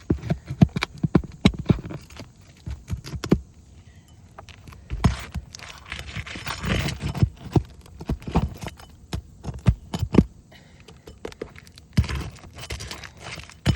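Leftover roofing nails being pulled out of asphalt shingles: an irregular run of sharp metallic clicks and knocks, broken by a few stretches of scraping.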